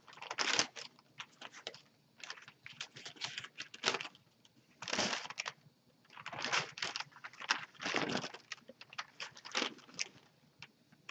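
Paper wrapper of a sterile suction kit crinkling and rustling as it is handled and unfolded, in irregular bursts.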